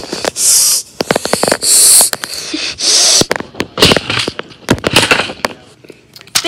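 Three short bursts of loud rustling hiss, with many sharp clicks and knocks between them: toys and plastic pieces handled close to the microphone.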